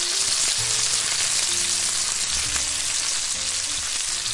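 Loud, steady sizzling like food frying in hot fat, with a few low music notes underneath; it begins to fade near the end.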